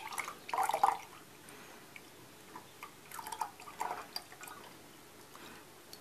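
Honey cough syrup dripping and trickling through a mesh strainer into a glass measuring jug, in uneven spells about half a second in and again around three to four seconds in.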